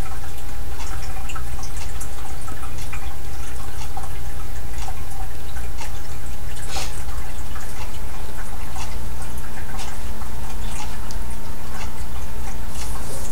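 Steady low hum with a thin steady whine above it, and scattered faint small clicks and ticks throughout.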